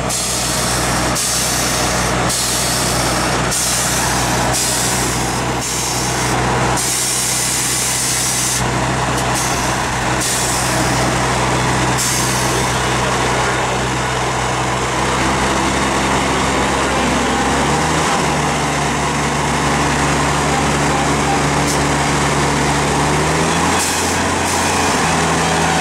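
Compressed air hissing in repeated short bursts as a Volvo truck's air suspension is let down, over the steady hum of its idling diesel engine. The hissing stops about halfway through, and the engine note steps up twice later on.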